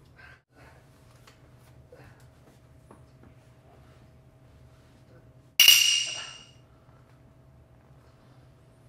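A single sudden, loud hit about halfway through, with a bright ringing tone that dies away over about a second, over a faint steady hum and a few small rustles and clicks.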